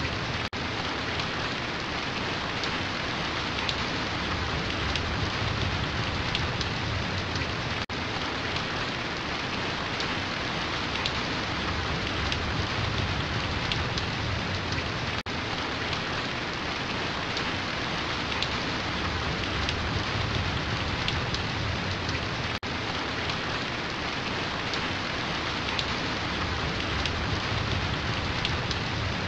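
Steady rain falling on a surface, a dense hiss with fine drop ticks. It dips briefly about every seven and a half seconds.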